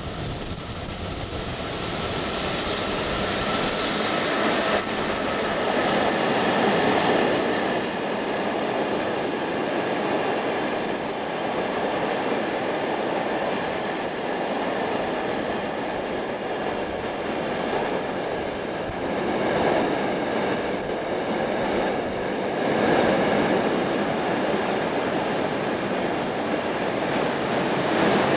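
Class 68 diesel locomotive and a long train of loaded container wagons running through a station, steady wheel-on-rail rolling and clatter with a faint wheel squeal in the first few seconds. Near the end a Class 156 diesel multiple unit passes close by on the near track.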